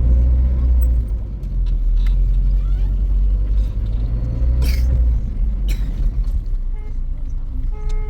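Steady low rumble of a running engine, with two sharp knocks about a second apart around the middle.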